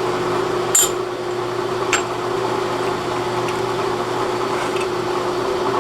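Electric drill running steadily with a 13/32-inch bit, a steady motor hum with two sharp metallic clicks about one and two seconds in.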